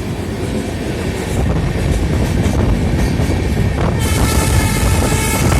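Train running along the track, heard from on board: a steady low rumble that grows louder about a second and a half in. About four seconds in a high hissing, ringing noise joins it for nearly two seconds.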